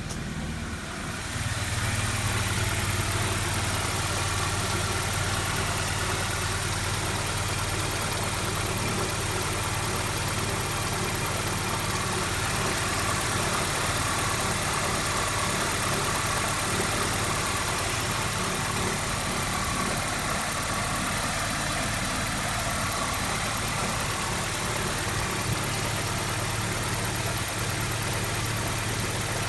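BMW E90 320i's four-cylinder petrol engine idling steadily from cold, with assorted mechanical noises and a faint rubbing, rhythmic 'guon, guon' noise that the owner takes for an abnormal noise.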